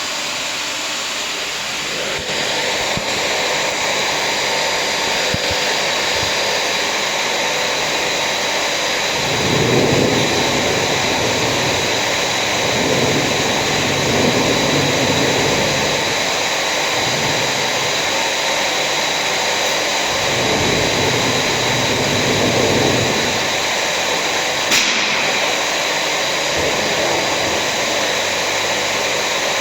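A motor-driven machine running steadily, with a heavier low rumble coming and going in several stretches through the middle, and a single sharp click near the end.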